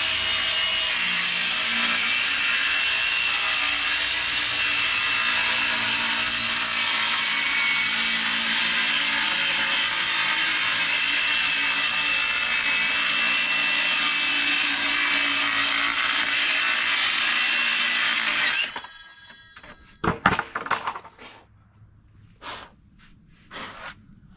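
Circular saw running and cutting through a 1-inch plywood sheet in one long, steady cut that stops abruptly about three-quarters of the way through. A few sharp knocks follow.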